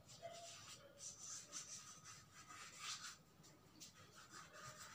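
Chalk writing on a roll-up blackboard: a string of faint, irregular strokes as the words are chalked out.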